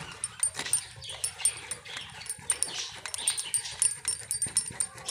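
Homemade paneer being grated on a steel box grater over a steel plate: repeated rasping strokes, about two to three a second, with light metallic scraping of the grater on the plate.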